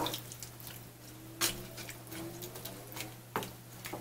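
Wooden spoon stirring sliced vegetables in vinegar brine in a metal pan: soft wet sloshing with a few sharp knocks of the spoon against the pan.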